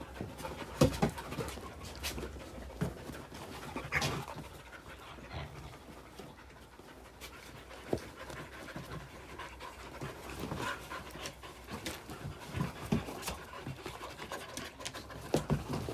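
Several small dogs play-wrestling: panting and snuffling, with scuffling and soft thumps of paws and bodies on the dog beds, the loudest thump about a second in.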